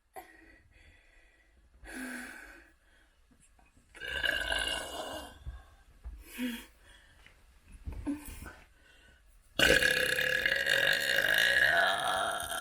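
A person burping: several separate burps of varying length, then one long burp of about three seconds near the end that is the loudest.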